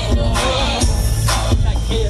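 Hip hop music with a heavy bass beat and rapped vocals, played loud over a PA.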